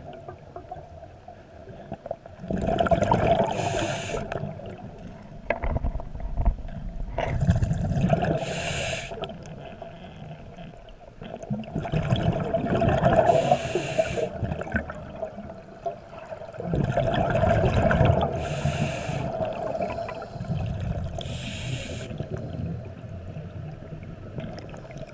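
Scuba diver breathing through a regulator: a short hiss of each inhalation and loud rumbling gurgles of exhaled bubbles, repeating about every five seconds, over a faint steady hum.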